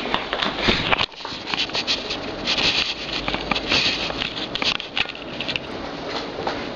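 Handling noise: cloth rustling and rubbing over the camera's microphone, with irregular clicks and scrapes as the camera is moved around.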